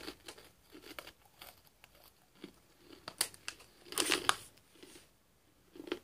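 Crinkling of a stand-up snack bag being handled, in scattered short crackles, loudest in a cluster about four seconds in.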